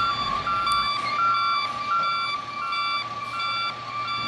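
Garbage truck's reversing alarm beeping steadily, a bit under two beeps a second, over the low running of the truck's engine.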